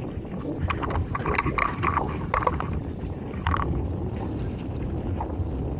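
Wind on the microphone and water lapping against a small fishing boat's hull, a steady low rumble. A cluster of short clicks and knocks comes in the first half.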